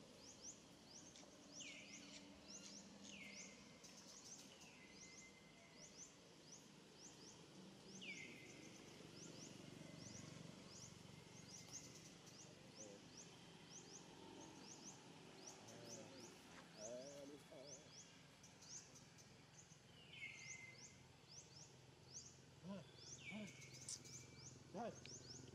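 Faint outdoor birdsong: a long run of short high chirps, about two a second, with a falling call heard now and then, half a dozen times in all.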